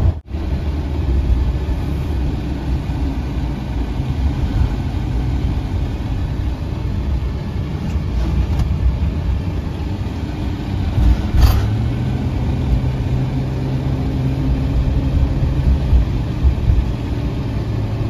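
Steady cabin noise of a car being driven: low engine and tyre rumble with a blowing hiss from the heater fan. A brief knock comes a little past the middle.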